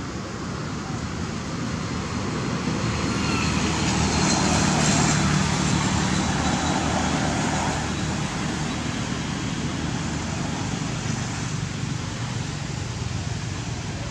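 Road traffic: a motor vehicle passes, swelling to loudest about four to six seconds in and then fading, over a steady background rumble.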